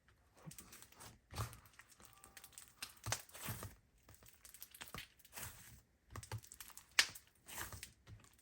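Play-Doh slime worked by hand: a run of irregular sticky clicks and small snaps as it is squeezed and pulled apart.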